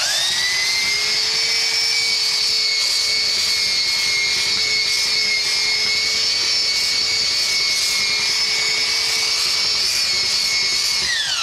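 Chicago Electric 69859 belt sander with a brushed motor spinning up with a rising whine as it is switched on. It runs at a steady high whine while its belt sands coating off wooden deck boards. Near the end it is switched off and its pitch falls as it winds down.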